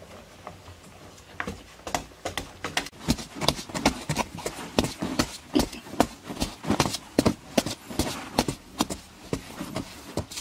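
Short-handled hoes chopping into hard, dry earth: a quick, irregular run of sharp thuds from two tools working at once, starting about a second and a half in.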